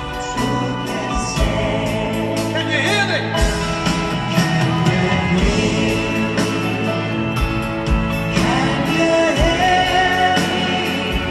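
A live band playing a slow rock ballad, with sung vocals over sustained chords and a slow, steady drum beat.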